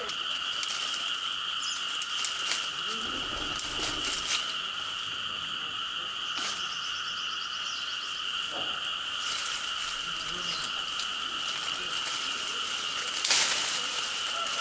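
Steady chorus of calling animals, an unbroken high drone held at two pitches, with scattered clicks and knocks over it, the loudest near the end.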